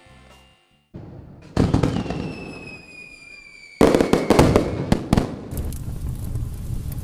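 Fireworks-style sound effects: a bang about a second and a half in with a slowly falling whistle after it, then a louder burst of sharp crackling pops about four seconds in, fading into a steady rushing noise.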